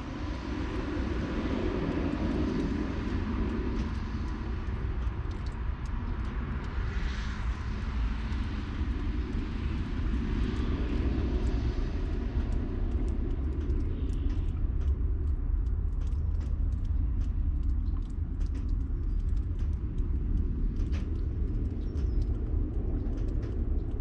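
Outdoor ambience in a snowstorm: a steady low rumble of wind on the microphone, under a broader hiss that fades out about halfway through. Scattered light ticks follow.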